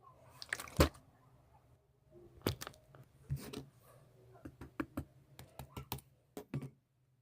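Irregular sharp clicks and taps, about fifteen, coming faster toward the end and stopping shortly before the end.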